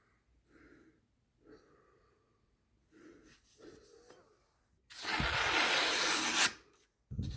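A freshly sharpened knife being put to a cutting test, making a loud rasping, sliding noise. It starts about five seconds in and lasts nearly two seconds, then begins again just before the end.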